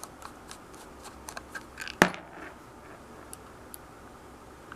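Small clicks and taps of pistol parts being handled while the grips are taken off a Beretta 92FS, with one sharp knock about two seconds in.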